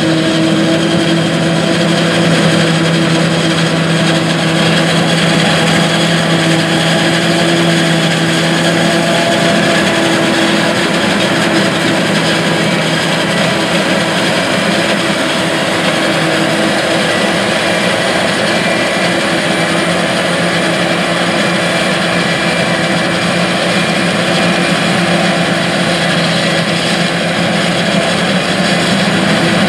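John Deere 8600 self-propelled forage harvester chopping standing corn and blowing silage into a truck. Its engine and chopping gear make a steady, loud drone and whine with several held tones, and a low hum fades out about nine seconds in.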